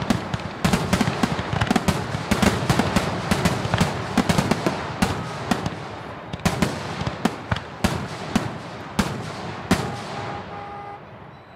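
Aerial fireworks going off in a rapid barrage of sharp bangs and crackles, thinning to scattered bangs after about six seconds and fading away near the end.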